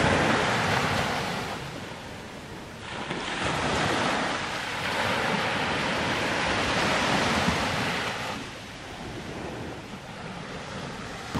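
Small waves washing up on a sandy beach, the surf swelling and fading a few times, with wind on the microphone.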